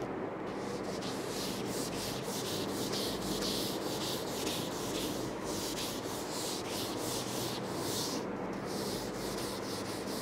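Handheld whiteboard eraser rubbing across a whiteboard in repeated quick strokes, wiping off marker writing, with a short pause about eight and a half seconds in before a few more strokes.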